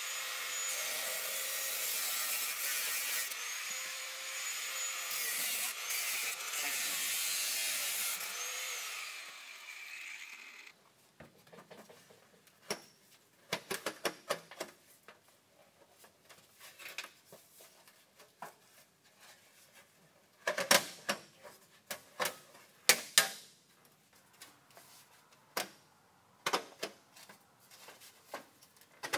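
A corded power tool runs for about ten seconds, its pitch dipping and rising, as it cuts through an old freezer's metal cooling lines. It then stops, and scattered metal clanks and rattles follow as the freezer's aluminium cooling plate with its coiled tubing is worked loose and lifted out.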